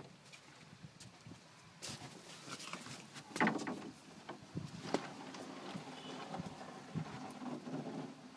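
Irregular wooden knocks and thumps on a small wooden river boat, the loudest about three and five seconds in.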